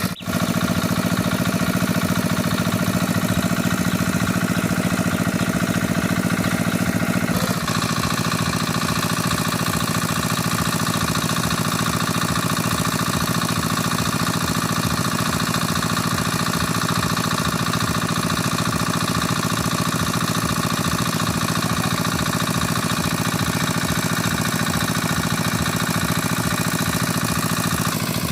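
An engine running steadily. Its note changes suddenly about seven and a half seconds in, then runs on evenly.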